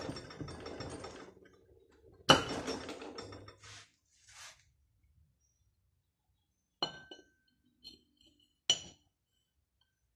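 Metal clinking and knocking while the front end cover is worked off a 7.5 kW three-phase induction motor: clattering for the first second or so, a loud knock about two seconds in, then two sharp ringing taps near the end.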